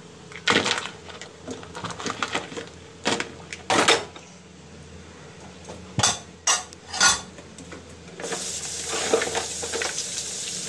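Irregular knocks and scrapes of live mud crabs being handled in a plastic basin. About eight seconds in, a kitchen tap is turned on and water runs steadily into the basin.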